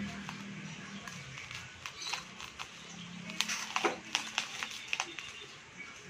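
Scissors snipping through tightly wound bubble-wrap packaging, with the plastic crinkling: a run of short crackles and snips that gets busiest about midway.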